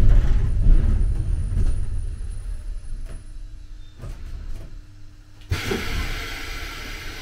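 Budapest M1 Millennium Underground train coming to a stop, its low running rumble fading away, then a sudden hiss of compressed air about five and a half seconds in that holds steadily as the car stands at the platform.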